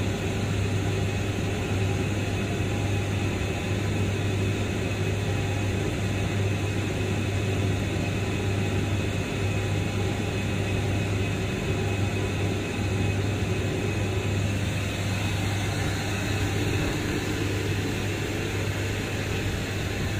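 Steady drone of refinery machinery: a constant low hum under an even hiss, unchanging throughout.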